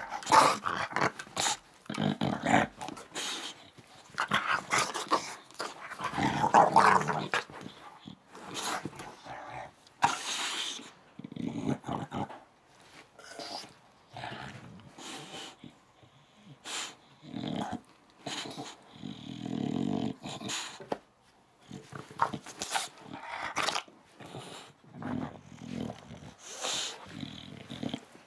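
English bulldog growling and grumbling in irregular bouts, the sound of an upset dog throwing a tantrum.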